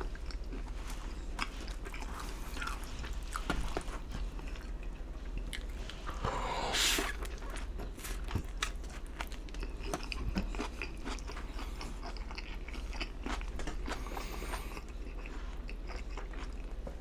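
Close-miked chewing and biting of pizza: crunching crust and many small wet mouth clicks, with one louder, longer burst about six seconds in.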